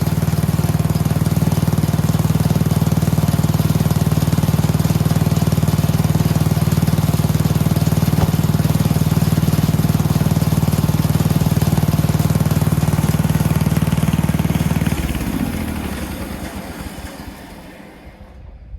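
Gasoline engine of a portable band sawmill running steadily at high speed, then slowing about fifteen seconds in and winding down to a stop.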